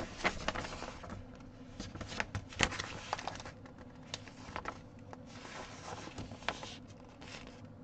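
Rustling and crinkling of a large tear-proof paper cross-stitch chart being unfolded and handled, with scattered light clicks and taps.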